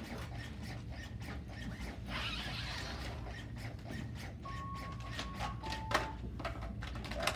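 LUCAS mechanical chest-compression device running on the patient, a steady hum with repeating clicks of its piston strokes. A burst of rustling comes about two seconds in, electronic beeps at two pitches sound a little past the middle, and a sharp knock comes near the end.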